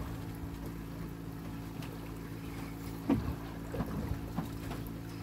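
Fishing boat's engine running steadily at constant speed, with a brief knock about three seconds in.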